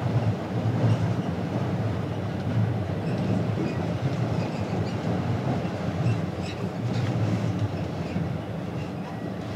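Steady low rumble of a ferry underway, heard from on board: the ship's engine and machinery noise.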